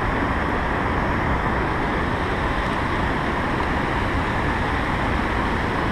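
Steady rush of river water pouring over a low dam's spillway and churning in the whitewater below it.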